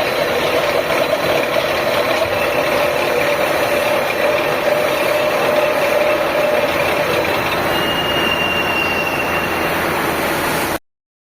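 Facing and centring machine running with a steady mechanical noise and faint whining tones, a higher whine appearing near the end, before the sound cuts off suddenly.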